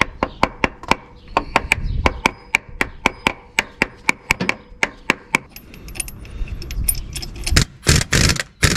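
A hammer rapidly tapping a socket held against a Toyota Camry V6's crankshaft pulley, driving the pulley onto the crankshaft with sharp metallic knocks about four or five a second for some five seconds. Near the end, a few short bursts of a pneumatic impact wrench.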